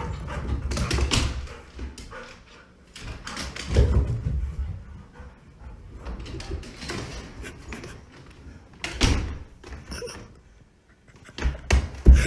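A dog barking and whining behind a closed door, with several loud thumps.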